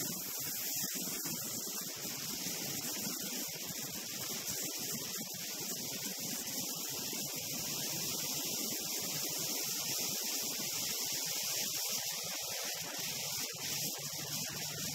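Steady wind rush and hiss on a camera microphone carried on a motorcycle at highway speed.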